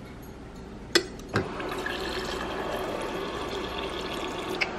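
Refrigerator door water dispenser running into a drinking glass: two sharp clicks about a second in, then a steady stream of water filling the glass.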